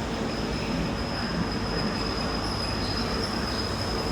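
InterCity 125 (HST) train drawing into the station: steady running and rail noise with a thin, high steady tone over it.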